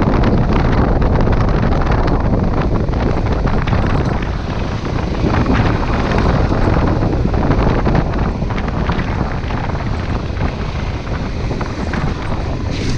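Wind buffeting the microphone over the steady running of a Honda Transalp 600's V-twin engine as the motorcycle rides along a dirt track.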